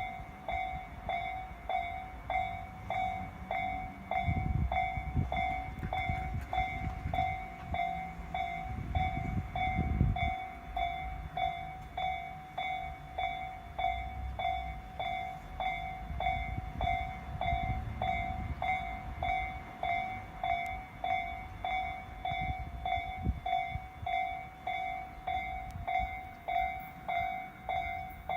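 Japanese railway level-crossing electronic warning bell starting abruptly and ringing in a slow, even rhythm: the slowed 'Tojo-type' bell tempo. A train rumbles past about four to ten seconds in.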